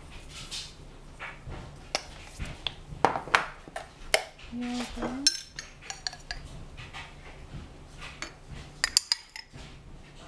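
Metal spoon clinking and scraping against a stainless steel saucepan and other kitchen containers as ingredients are spooned in, in irregular sharp knocks, with a quick run of clinks near the end.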